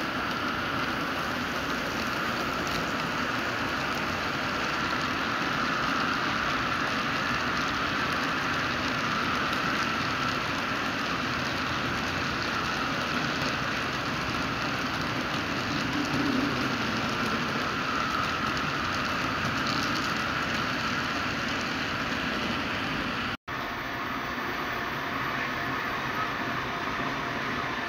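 HO scale model train running along the layout track, with twin C36 diesel models hauling cement wagons: a steady whir and rolling noise from the locomotives' motors and the wheels on the rails. The sound cuts out for an instant about three quarters of the way through, then carries on much the same.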